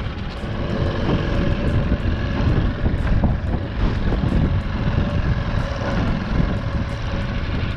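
Small 5 hp outboard motor running as an aluminium dinghy motors through choppy water, with water splashing against the hull and wind on the microphone.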